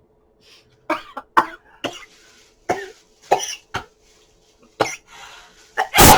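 A person coughing in short fits, several separate coughs over a few seconds, with the loudest cough near the end.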